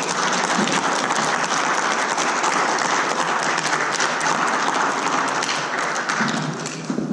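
Audience applauding with many hands clapping together, fading near the end.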